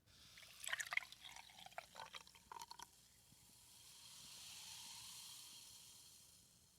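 Faint liquid sounds: a run of small drips and splashes, then a soft hiss that fades.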